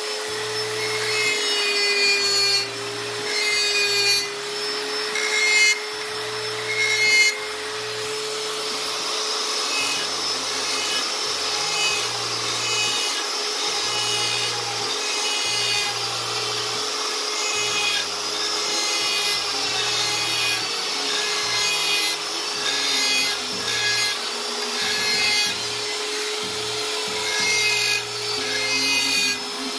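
Handheld electric die grinder running with a steady whine while its small burr bit grinds feather grooves into wood. The cutting comes in short strokes about once a second for the first several seconds, then turns into longer, steadier grinding.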